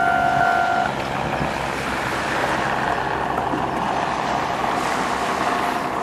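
Japanese railway level-crossing warning bell ringing, which stops about a second in as the crossing clears after the train. A steady rushing noise carries on behind it.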